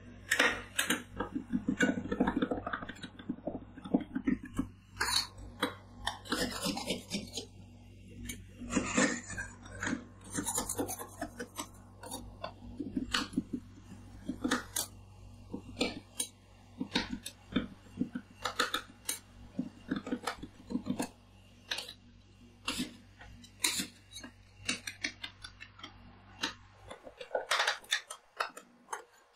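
Two metal spatulas chopping blueberries into ice cream base on a cold steel ice-roll pan: quick irregular taps and scrapes of metal on metal. A low steady hum underneath cuts off near the end.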